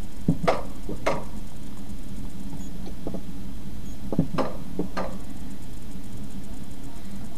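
Summer toboggan sled running down its steel track: a steady rolling rumble from the wheels, with a few sharp clacks and rattles about a second in and again around four to five seconds in.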